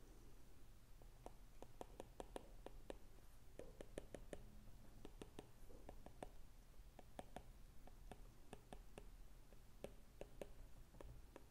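Faint, irregular taps and clicks of a stylus tip on a tablet's glass screen as words are handwritten.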